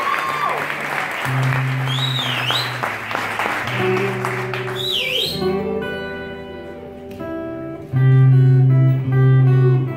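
Audience cheering and whistling fade out over the first half as acoustic guitars play a slow introduction of sustained plucked notes, with a few loud low notes ringing out near the end.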